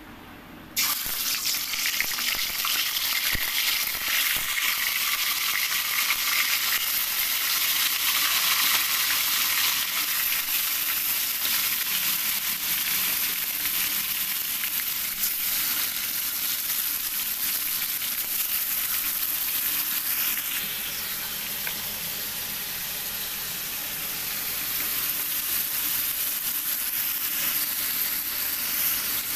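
Marinated chicken pieces frying in hot oil in an aluminium wok: a loud, steady sizzle that starts suddenly about a second in as the chicken hits the oil, easing a little about two-thirds of the way through.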